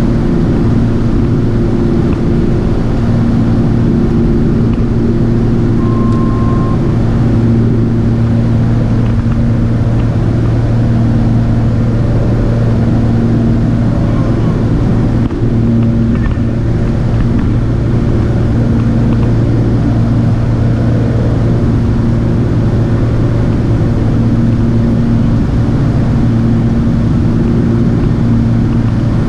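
Propeller aircraft engine and propeller droning steadily in cruise, heard inside the cockpit, with airflow noise. A short beep sounds about six seconds in.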